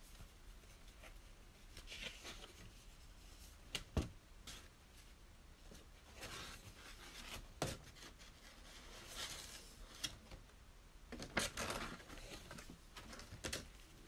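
Paper and card rustling in spells as a paper planner pad is handled and turned over, with a few sharp light taps, one of the loudest about four seconds in.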